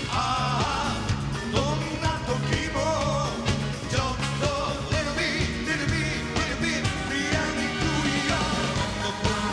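A live soul-pop band playing, with a male lead voice singing into a handheld microphone over a steady drum beat, bass, electric guitar and keyboards.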